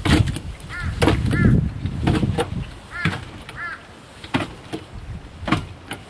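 A crow cawing twice in pairs of short, arched calls, over low wind rumble on the microphone and scattered sharp clicks and knocks.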